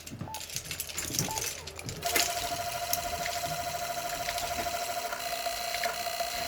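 A few short button beeps from a ham transceiver. Then, about two seconds in, a steady tuning tone starts, with a fast, even clicking over it for about five seconds: an automatic antenna tuner's relays chattering as it hunts for a match on a whip antenna whose SWR stays very high.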